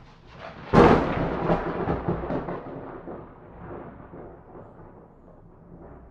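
A thunderclap: a sharp crack about a second in, followed by an uneven rumble that slowly fades away.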